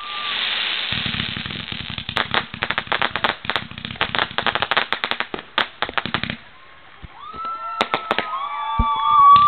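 Fireworks going off: a fast crackling run of pops for about five seconds, then after a short lull several whistling tones that bend up and down near the end, cut through by a couple of sharp bangs.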